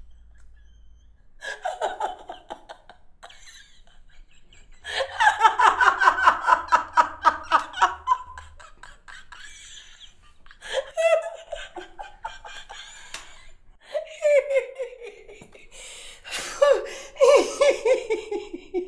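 A woman laughing out loud in several separate bouts, each a quick run of rhythmic ha-ha pulses with short pauses for breath between them. The longest and loudest bout comes about five seconds in; later bouts fall in pitch.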